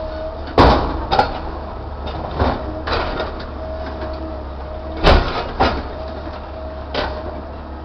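Link-Belt excavator's engine running steadily with a constant hum, while its bucket digs coal out of a steel hopper car, giving sharp knocks and clanks, the loudest about half a second in and about five seconds in.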